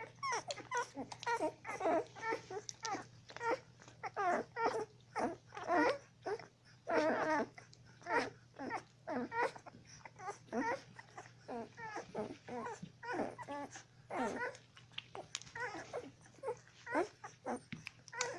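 A litter of 12-day-old puppies feeding, making a constant stream of short high squeaks, whimpers and little grunts that overlap one another.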